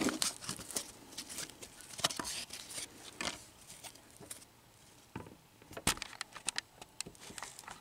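A stack of cardboard baseball cards being handled: scattered light clicks and rustles as the cards are squared up and shifted between the hands.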